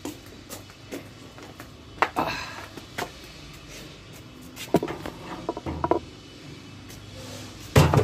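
A ripe banana being peeled by hand: short snaps and tearing of the peel come in a few scattered bursts, with a louder thump near the end.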